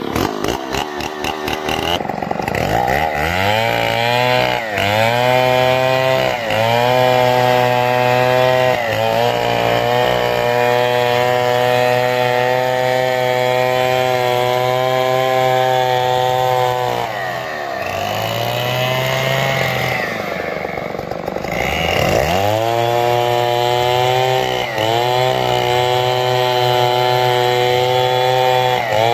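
Two-stroke chainsaw revving up to full throttle and ripping a santol log lengthwise into planks. About two-thirds of the way through it eases off to idle, then revs back up and cuts again.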